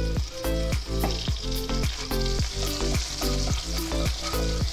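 Butter melting and sizzling in a hot nonstick kadai, stirred with a wooden spatula, under background music with a steady beat.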